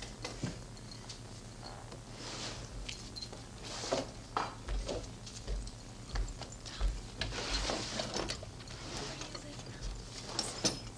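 Irregular rustling and clicking with several soft low thumps, over a steady low electrical hum.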